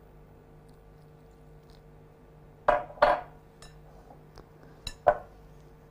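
Glass clinking and knocking as a small glass jug and a glass mixing bowl are handled while semolina dough is mixed by hand. There are about five sharp clinks, starting about two and a half seconds in; the first two are close together and the loudest.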